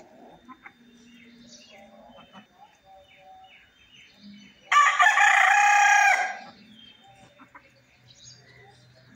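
Rooster crowing once, a single loud crow of under two seconds about halfway through, cutting off sharply at the end.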